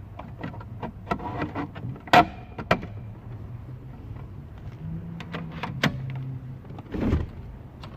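Sharp plastic and metal clicks and knocks as an aftermarket head unit is pushed and wedged into its dash mounting cage, the loudest a little over two seconds in. A low steady hum follows from about the middle, with a dull thud near the end.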